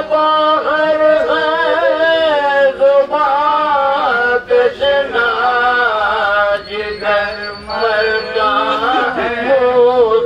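Men's voices chanting an Urdu marsiya, a mourning elegy, unaccompanied, in a slow melody whose long notes waver and bend.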